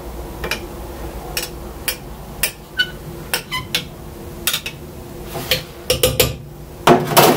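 A spoon stirring coffee in the glass carafe of an IKEA UPPHETTA French press, clinking against the glass walls in short irregular taps, about two a second.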